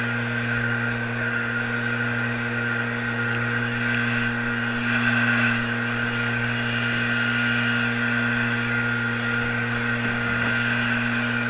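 Small gasoline engine of lawn equipment running steadily at one constant speed, without revving up or down.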